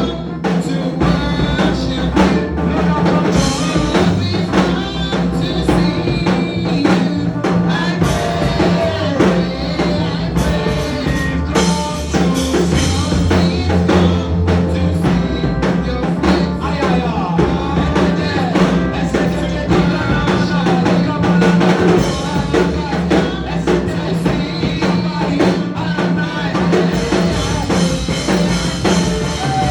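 Gospel worship music played by a band, with a drum kit keeping a steady beat under a strong bass line and wavering melody lines.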